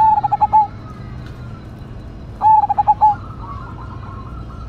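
Zebra dove (perkutut) singing its loud cooing song: two short phrases of quick coo notes, one at the start and one about two and a half seconds in. Fainter, higher cooing continues after the second phrase.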